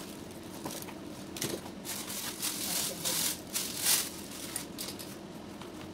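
Packaging rustling and crinkling in irregular bursts as a boxed studio microphone kit is unpacked by hand, loudest about four seconds in.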